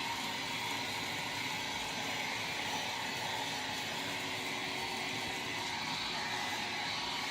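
Vax Blade Ultra 32V cordless stick vacuum cleaner running steadily: a constant high motor whine over rushing air.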